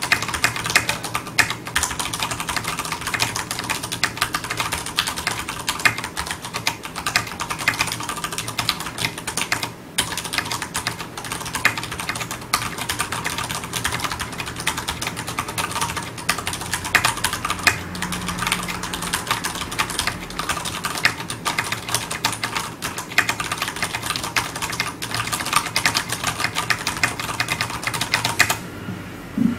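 Continuous, fast typing on a Ducky 9087 Shine 3 mechanical keyboard with Cherry MX Brown switches and PBT double-shot keycaps, a dense run of key clacks that stops about a second before the end.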